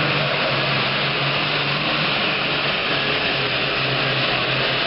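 Super Farm class pulling tractor's turbocharged diesel engine running hard under load during a pull, a loud, steady, unbroken drone.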